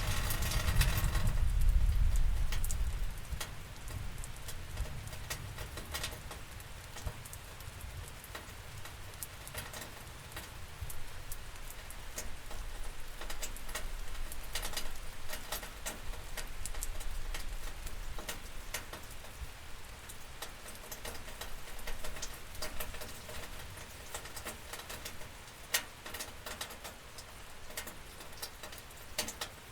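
Night rain heard through a window: a steady hiss of rain with irregular drops ticking sharply on a hard surface. A low rumble swells and fades over the first three seconds or so.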